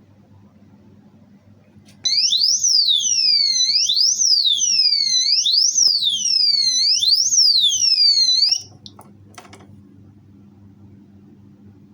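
Motorcycle disc lock's built-in alarm siren sounding: a loud, shrill electronic wail sweeping up and down in pitch about once every second and a half. It starts about two seconds in, cuts off suddenly after about six and a half seconds, and a couple of clicks follow.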